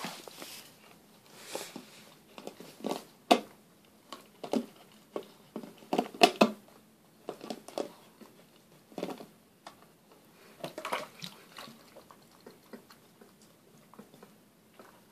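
Poodle puppy chewing and pawing an empty plastic water bottle, the thin plastic crinkling and crackling in irregular bursts, loudest about three seconds and six seconds in.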